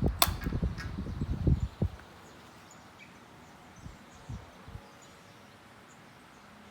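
Airflow from a Sunrays FD-40K pedestal fan buffeting the microphone in gusts for about the first two seconds, with one sharp click just after the start. After that only a faint steady fan hiss and a few light ticks are left.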